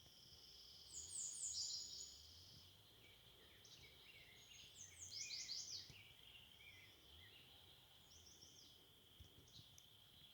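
Faint songbird song: short phrases of quick falling high whistles, the loudest about a second in and again about five seconds in, with a weaker phrase near the end, over a steady high-pitched hum.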